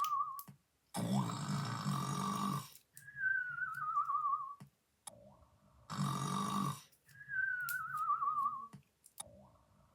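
Exaggerated cartoon snoring: a loud rasping snore on the in-breath, then a high whistle on the out-breath that wavers as it slides down in pitch. The cycle comes twice, about every three seconds.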